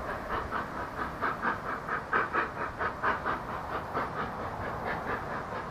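NSW 32 class 4-6-0 steam locomotive 3265 approaching, its exhaust chuffing in an even rhythm of about four beats a second, loudest about two seconds in.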